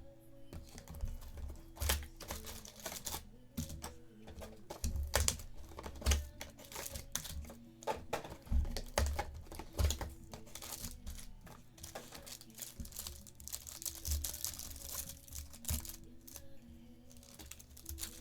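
Plastic wrappers on a trading card hobby box and its packs being torn open and crinkled, with irregular clicks and knocks as the box and cards are handled. Faint background music underneath.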